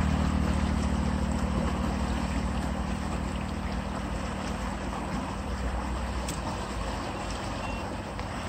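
Water gushing out of a concrete culvert pipe and churning the channel below, a steady rushing with a low hum underneath.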